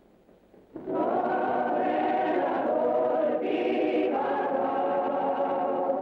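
Film score choir singing long held chords, coming in about a second in after a near-silent pause and breaking off just at the end.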